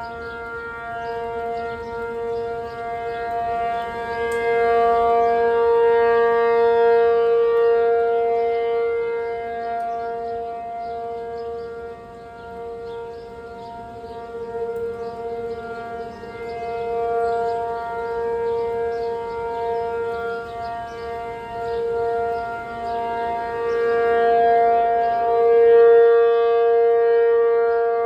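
P-50 outdoor warning siren sounding its alert-mode steady tone. It holds one pitch without rising or falling, growing louder and fainter in slow swells.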